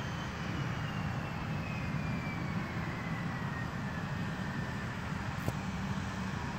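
Turbofan engines of an Embraer E175 regional jet (GE CF34) running as the jet moves along the runway: a steady low rumble with a thin whine that slowly falls in pitch.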